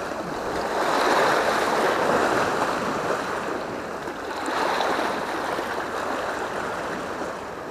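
Sea waves washing and foaming over breakwater rocks: a steady rush that swells twice, about a second in and again past the middle.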